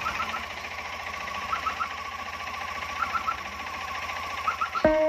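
Tata Nano's two-cylinder petrol engine idling with a newly fitted alternator belt, running steadily with a fast low pulse and a steady whine. A short triple chirp repeats about every second and a half. Music comes in right at the end.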